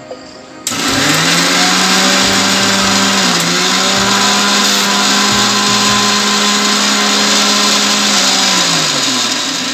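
Electric mixer grinder with a small jar running, grinding green chillies and mint leaves fine. The motor switches on suddenly about a second in and spins up, runs steadily with a brief dip in pitch near the third second, then winds down with a falling hum near the end.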